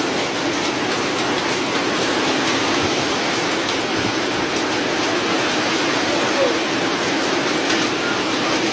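Hail falling heavily: a steady, dense rush of hailstones striking, with faint scattered ticks in it.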